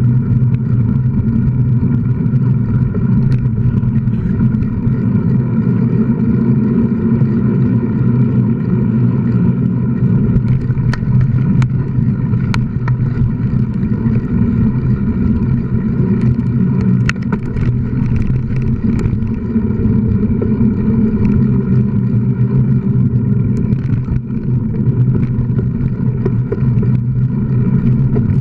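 Steady loud rumble of wind and tyre noise from a camera riding on a mountain bike over gravel and dirt trail, with scattered sharp clicks and rattles, mostly in the middle.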